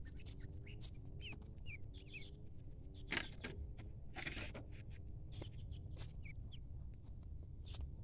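Ducklings peeping in short, soft chirps, with two brief scratchy rustles about three and four seconds in.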